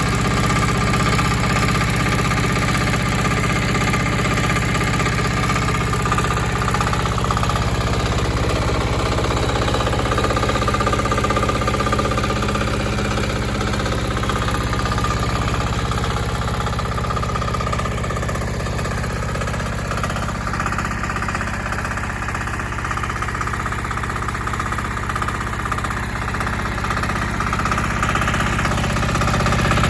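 DH 0115 mini excavator engine running steadily, a little quieter through the middle stretch and louder again near the end.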